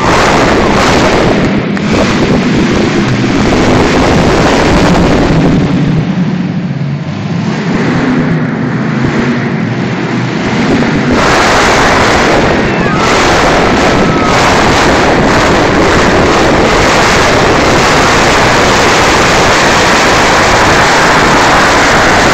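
Monster truck engine running hard at high revs, very loud. It eases off about five seconds in, where a lower engine note comes through, and is back at full power from about eleven seconds on.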